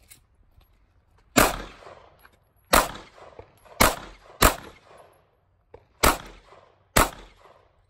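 Six 9mm pistol shots from a Glock 43, fired singly at uneven intervals of roughly half a second to a second and a half. Each shot trails off in a short echo.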